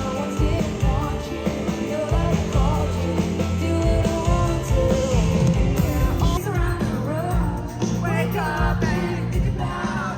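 Pop song played loud by a band with a singer's voice over a steady bass and beat, as heard live at a concert.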